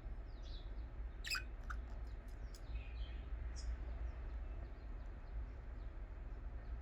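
Pet budgerigars chirping: a sharp downward-sweeping call about a second in, then a quick run of clicks and a few short high chirps, over a steady low hum.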